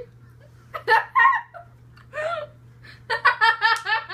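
Girls giggling in bursts: a short burst about a second in, a brief one around two seconds, and a run of quick pulsing giggles near the end.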